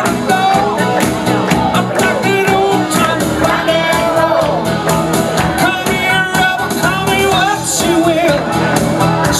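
Rock song with a lead singer over a steady drum beat and band.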